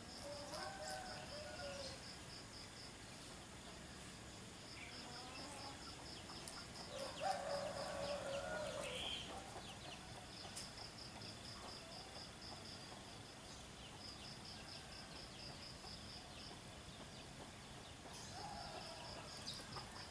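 An insect's high, rapidly pulsing trill runs in long stretches with short breaks, while chickens call now and then, the loudest call about seven seconds in.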